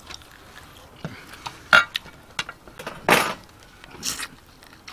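Close-up eating sounds as a mutton chop is bitten and sucked off the bone: wet mouth clicks and smacks, with a sharp clink a little under two seconds in and two louder breathy sucks around three and four seconds in.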